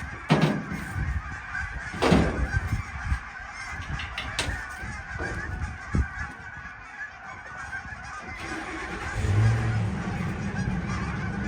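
A vehicle engine running as the truck reverses, its low hum swelling about eight seconds in, with two loud clunks in the first couple of seconds. A flock of birds calls steadily in the background.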